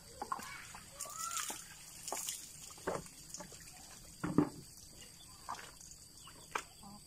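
Bucket bath: water poured from a basin and splashing onto a wet concrete slab, with the basin dipped into a bucket, in a few separate splashes, the loudest about four seconds in. Chickens cluck around it.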